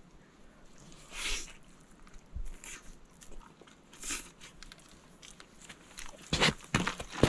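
A person eating, with bites and crunchy chewing in scattered short bursts that grow louder and sharper near the end.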